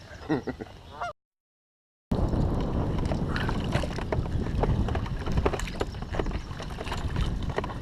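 Water lapping and splashing around a kayak, with wind on the microphone and many small clicks and knocks. The sound drops out completely for about a second shortly after the start.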